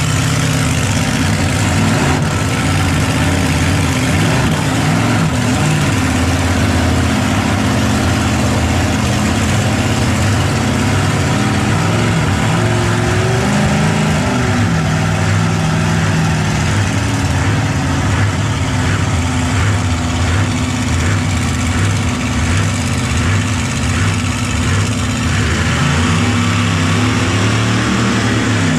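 Monster truck engine idling steadily, heard from inside the truck's open cab.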